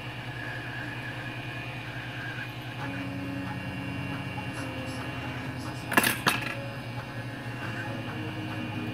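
Hot-air rework gun blowing steadily on a phone logic board, a low even whir with a hum underneath. Two sharp clicks about six seconds in.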